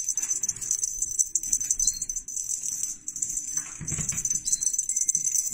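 Continuous high-pitched jingling of small bells, dipping briefly near the middle. About four seconds in there is a soft low rustle and thump as the kitten rolls over on the wooden floor.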